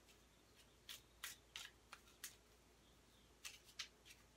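Tarot cards being shuffled by hand, faint: quick, short swishes of cards sliding against one another, in two irregular runs with a pause of about a second between them.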